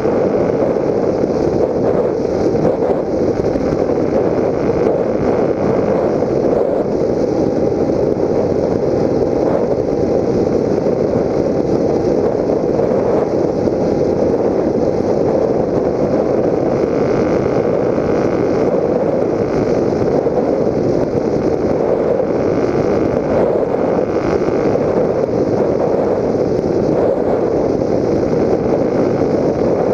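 Steady rushing airflow and propeller noise from a Raptor 1600 FPV model plane in flight, picked up by its onboard GoPro. A faint steady whine comes in for a few seconds in the first half.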